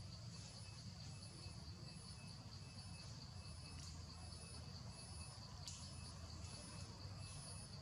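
Faint steady insect chorus, a high buzzing that holds level throughout, over a constant low rumble, with two faint clicks about four and six seconds in.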